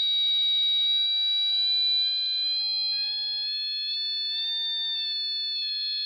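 Continuous electronic tone from a small loudspeaker, generated by a tone-decoder chip working as an oscillator with its pitch set by a digital potentiometer. The pitch steps slightly up and then back down as the rotary encoder knob is turned.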